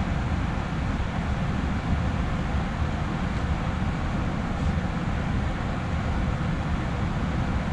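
Used oil-fired forced-air mobile-home furnace running: a steady low rumble from the oil burner firing and the blower fan.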